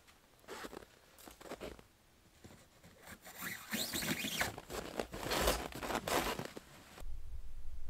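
Canvas rustling and cord rasping as a load on a plastic sled is lashed down with stretched shock cord: a few short rustles, then a longer run of quick rising rasps as the cord is pulled across the canvas.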